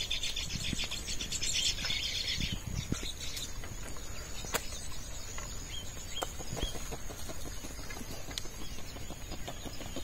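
Birds calling: a rapid chattering trill that stops about two and a half seconds in, then a few short separate chirps, over a faint steady high tone.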